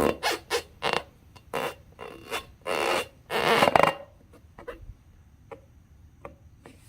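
Balloons and slime being squeezed and handled: a run of short rubbery creaks and squelches, thinning out after about four seconds to a few soft clicks.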